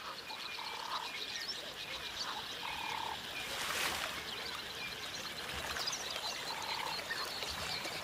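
Three short, even-pitched animal calls spread across a few seconds over faint riverside ambience, with a brief hiss about four seconds in.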